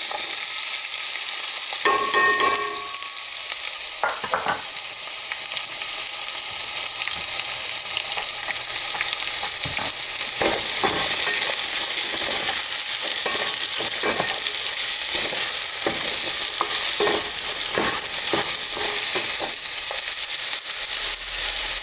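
Chopped onion sizzling steadily in hot oil in a pan, freshly added to a tempering of mustard seeds and chana dal. Short scraping and clinking strokes of a spoon stirring the pan come through the sizzle, with a brief ringing clink about two seconds in.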